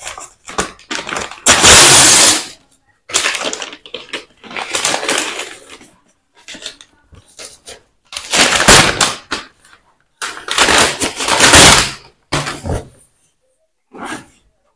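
Brown paper courier mailer being torn open and crumpled in irregular bursts of rustling and ripping. The loudest bursts come about two seconds in and again between eight and twelve seconds in.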